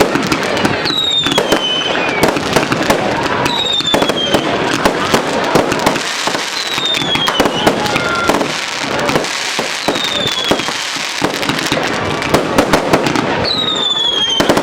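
Fireworks going off in quick succession, a dense run of sharp cracks and bangs. About five whistles fall in pitch through the run.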